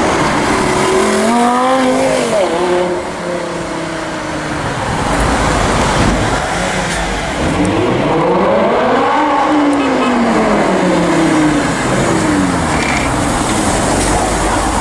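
Lamborghini Gallardo LP570-4 Performante's 5.2-litre V10 engine, first blipped in a few quick revs, then rising in a long run of revs that peaks about two-thirds of the way through and falls away.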